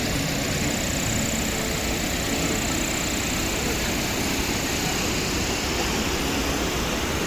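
Steady rush of water pouring down a waterfall, an even roar with a thin high steady tone above it.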